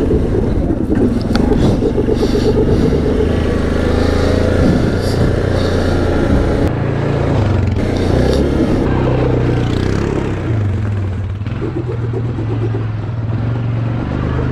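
Yamaha Grizzly 700 ATV's single-cylinder four-stroke engine running as the quad is ridden slowly, engine speed rising and falling with the throttle, with some clatter.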